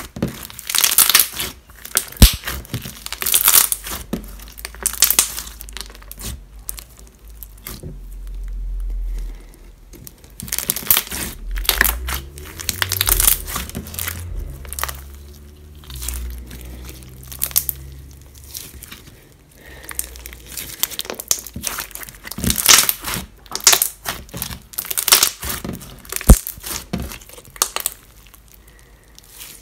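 Clear slime with sugar beads mixed in, kneaded and pressed by hand on a hard counter: irregular sticky crackling and crinkling. A low rumble comes in about eight seconds in and fades out some seconds later.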